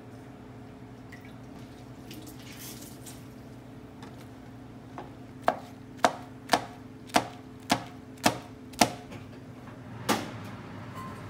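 Chef's knife chopping through soaked dried bean curd onto a plastic cutting board: seven sharp knocks about half a second apart, then one more after a short pause. A steady low hum runs underneath.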